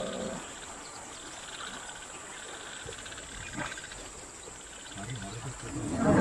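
Quiet grassland ambience with a steady, faint, high-pitched insect hum. In the last second a low rumble swells and grows louder.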